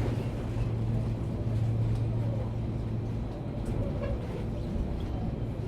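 Steady low electric hum inside a Sotetsu New 7000 series motor car as the train comes to rest at the terminus, with a few faint clicks; the falling tone of the Hitachi GTO inverter has died away.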